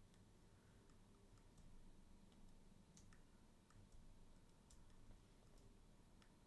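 Near silence with faint, irregular computer mouse clicks, roughly one a second.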